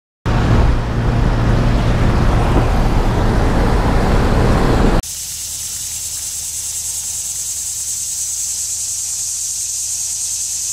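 A loud, rough rushing noise with a deep rumble, which cuts off suddenly about five seconds in. It gives way to a steady high-pitched buzzing chorus of insects.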